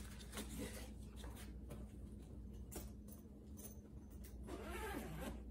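Faint scuffs and taps of hands on a soft fabric saxophone case. Near the end, its zipper starts to be pulled open.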